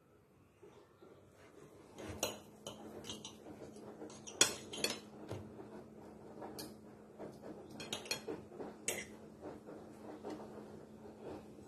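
Metal utensils clinking and knocking against dishes in irregular strikes, with a steady low hum that starts about two seconds in.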